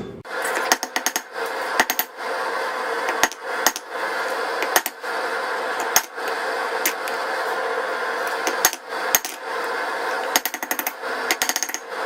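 Light hand-hammer blows on hot steel on an anvil, struck at an uneven pace with a quick run of taps near the end, over a steady rushing noise. The blows are dressing out fish lipping on the end of a 5160 coil-spring slot punch.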